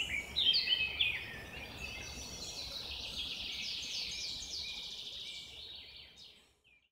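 Birds singing: a quick, continuous run of short falling notes, fading out about six seconds in.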